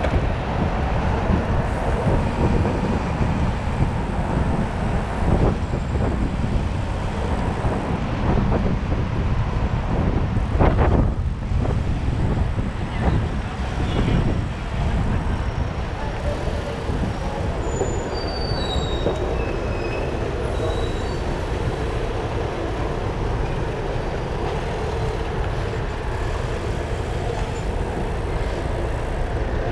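City traffic heard from a moving bicycle: a steady rumble of road noise and wind on the microphone, louder for a moment about a third of the way in. A few short high squeals come about two-thirds of the way through.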